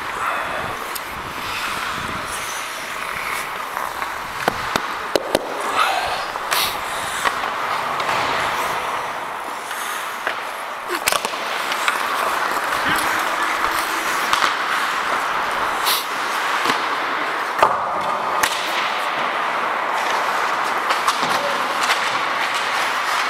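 Ice hockey play: skate blades scraping steadily on the ice, with sharp clacks and bangs of sticks, puck and boards scattered throughout.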